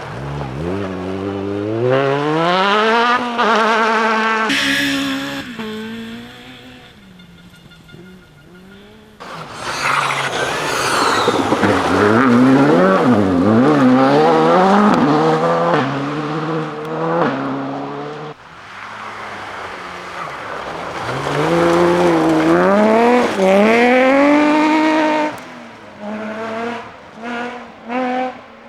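Rally cars at full throttle, engines climbing in pitch and dropping back at each gear change as several cars pass in turn. The sound changes abruptly a few times, and it breaks into short bursts near the end.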